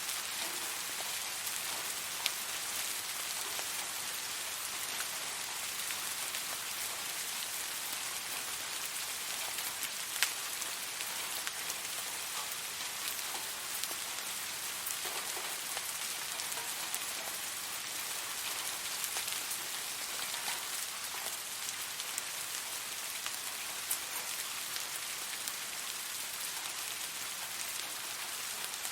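Steady rain falling on a surface, an even hiss with the occasional sharper single drop hitting close by.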